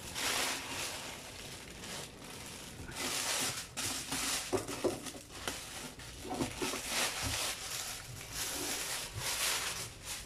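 Plastic packaging bag crinkling and rustling in irregular bursts as an inverter is slid out of it and unwrapped by hand.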